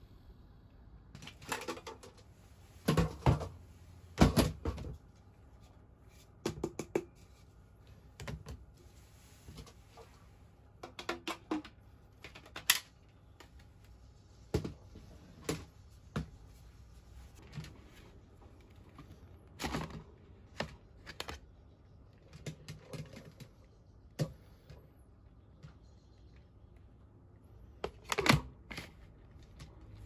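Scattered sharp plastic clicks and knocks as a Makita cordless stick vacuum and its clear cyclone dust cup are handled over a lidded trash bin, with the vacuum's motor off.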